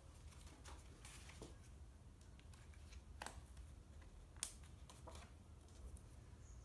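Sheets of printing paper being lifted, laid down and lined up by hand: soft rustles and light taps, with one sharper tap about four and a half seconds in, over a faint low hum.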